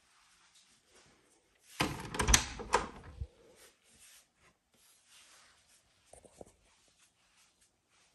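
A hinged closet door being opened: a burst of latch clicks and knocks lasting about a second and a half, starting about two seconds in, then two faint clicks a few seconds later.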